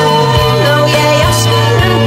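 Music from a song edit: a held low bass note under sustained tones, with a melody line that glides downward between notes.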